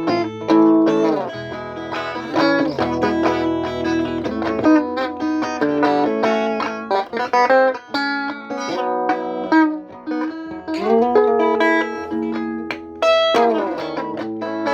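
Instrumental guitar improvisation: plucked notes and chords ringing on, with some notes sliding up in pitch.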